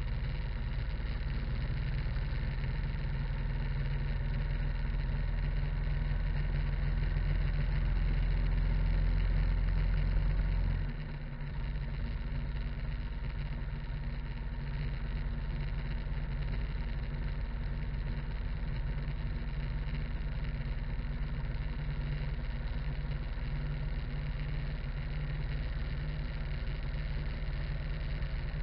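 Harley-Davidson motorcycle's V-twin engine running with the bike under way at road speed, a steady low rumble. It builds gradually for about ten seconds, then drops suddenly about eleven seconds in and runs on steadily.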